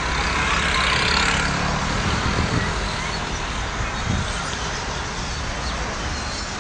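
Town road traffic: a vehicle passes during the first couple of seconds, over a steady low hum of traffic.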